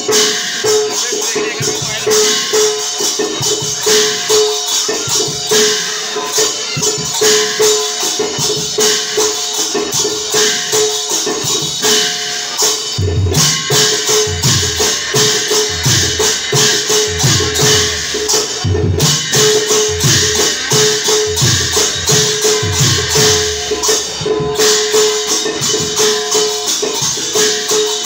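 Live percussion accompaniment for a Bhaona dance: fast, steady metallic cymbal clashes with a short ringing note repeated about twice a second, and low drum beats that grow strong about halfway through.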